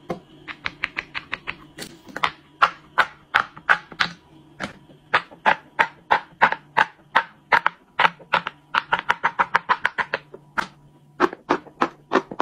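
Green silicone push-pop poppets being popped by fingers in quick succession: sharp pops at about five a second, with a brief pause near the end.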